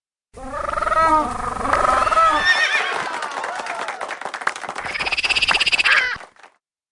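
Animal calls: a run of wavering pitched calls, then a fast rattling pulse with a higher tone about two-thirds of the way in.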